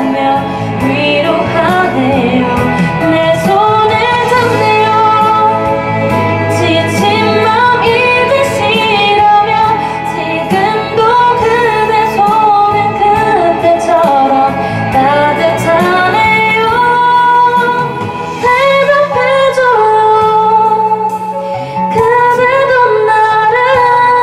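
A young woman singing a sorrowful song into a karaoke microphone over a backing track, her voice carrying the melody with wavering held notes.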